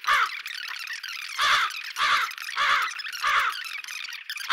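Cartoon bird squawk sound effect, short squeaky calls repeated about every half second.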